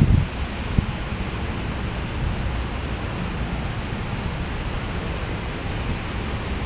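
Wind buffeting the microphone: a steady rushing noise with gusty low rumble and a couple of low thumps near the start.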